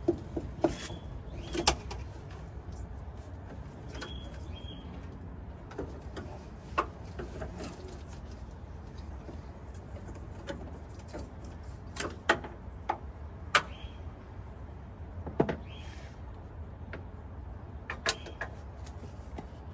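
Scattered sharp clicks, taps and knocks of small objects being handled, over a steady low hum.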